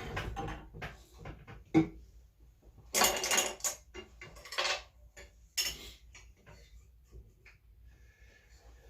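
Scattered metal clinks and clatter from handling parts and tools on a vintage sewing machine during oiling: a sharp click about two seconds in, a louder rattling clatter about three seconds in, and a few shorter ones after it, before it goes quieter.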